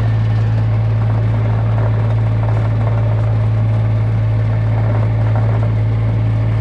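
Vehicle engine running steadily at a constant speed, a loud, unchanging low hum.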